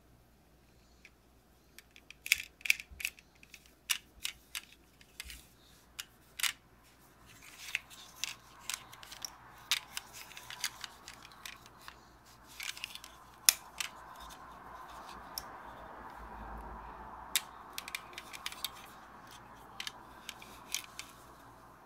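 Small sharp clicks and taps of a diecast metal Ford GT model car being handled in cotton-gloved hands, its doors snapping open and shut. The clicks come irregularly, with a soft rubbing sound underneath through the second half.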